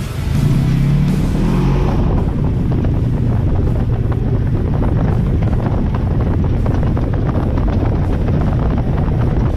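Side-by-side UTV engine running steadily as it drives over a dirt trail, a loud low rumble with wind buffeting the microphone. Music fades out about two seconds in.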